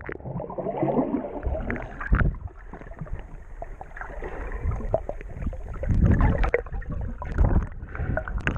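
Muffled underwater sound of water moving around a swimmer: sloshing and gurgling with uneven dull thumps and surges, and no high sounds.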